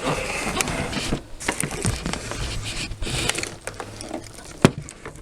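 Rustling and scattered clicks of a Hoover Junior upright vacuum's cloth dust bag being handled, with one sharp click near the end.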